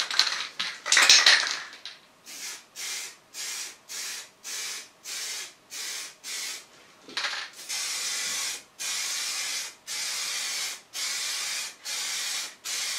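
Aerosol primer can spraying a second coat in separate hisses: a louder one near the start, then short spurts in quick succession, and from about seven seconds in longer passes of about a second each.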